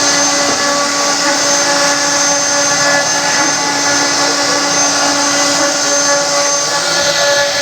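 CNC wood router spindle running steadily while carving wood: a constant hiss with several steady whining tones over it.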